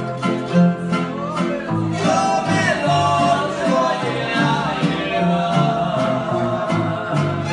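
Live Tierra Caliente arpa grande ensemble playing: harp bass line under strummed guitars and vihuela, with voices singing, and bowed violins coming in near the end.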